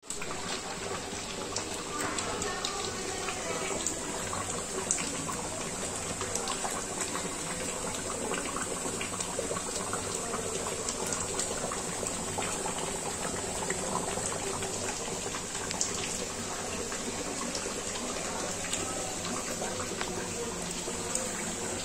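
Thick butter chicken gravy bubbling at a boil in a large metal pot: a steady hiss with many small pops.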